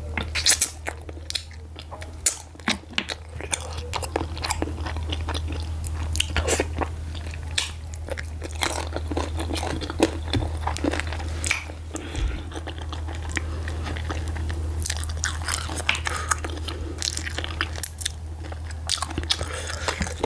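Close-miked chewing and wet mouth smacking of garri fufu and slimy ogbono soup eaten by hand, with fingers sucked into the mouth; many sharp crackling clicks go on throughout over a steady low hum.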